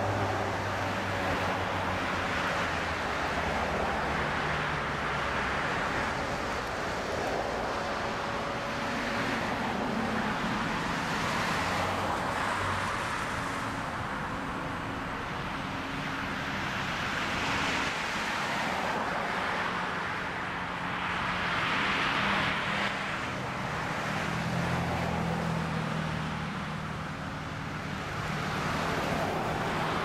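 Road traffic going by, several cars passing one after another in swells, over a faint low hum.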